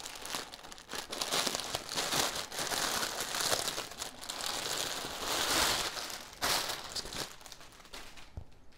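Clear plastic bag crinkling and rustling as a folded hoodie is worked out of it, dense crackling that thins out and fades near the end.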